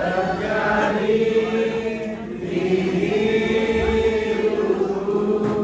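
Several voices singing together in slow, long-held notes, with a short break between phrases about two seconds in.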